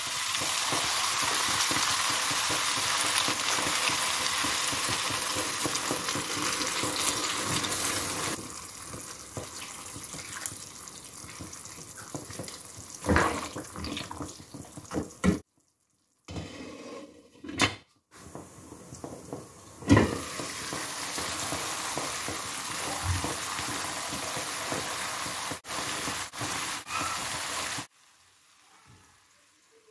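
Water poured into a hot pan of penne and tomato sauce, a steady loud hiss for about eight seconds. Then a wooden spoon stirring and knocking against the pan, with several sharp knocks.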